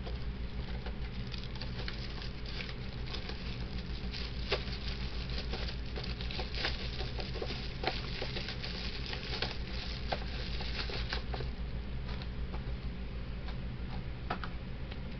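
Irregular crinkling and rustling of plastic-wrapped fireworks being handled and rummaged through by hand, a run of small clicks and crackles over a steady low hum.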